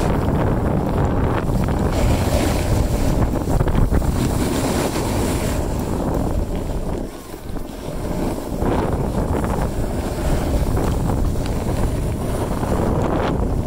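Wind buffeting the microphone of a camera carried by a moving skier, a dense rumbling rush that eases briefly about halfway through.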